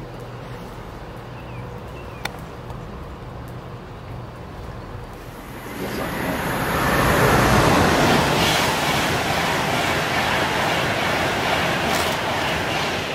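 A Class 390 Pendolino electric train running through at speed: after a quiet start, a loud rush of wheels on rail and air swells about six seconds in and stays loud as the train passes.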